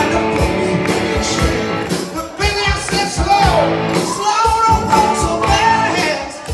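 Live rock band playing: electric guitars, bass, keyboard and a steady drum beat, with a man singing lead.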